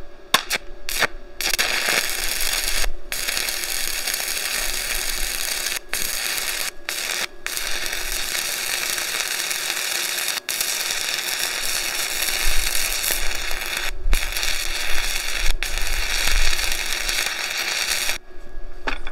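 Stick-welding arc from a 6010 electrode on a Tooliom TL-200T welder at 100 amps. A few short strikes come first, then a steady arc noise that breaks off briefly several times and stops just before the end. The breaks are the arc being lost, which 6010 rods do on this machine unless held at an unusually tight arc length.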